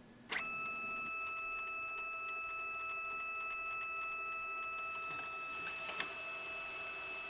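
ID Maker Advantage card printer's roller motor starting with a click and running steadily with a whine as it feeds the cleaning card through its rollers in the roller-cleaning cycle. A single click about six seconds in.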